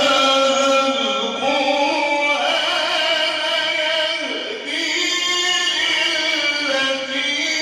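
A man's solo voice in melodic mujawwad-style Quran recitation, holding long drawn-out notes that step up and down in pitch.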